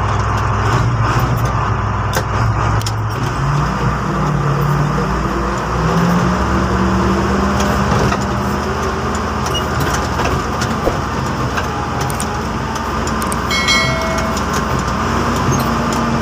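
Motor grader's diesel engine running, heard from inside the cab, its pitch rising a few seconds in and shifting a couple more times as the machine works. A short high-pitched squeak comes near the end.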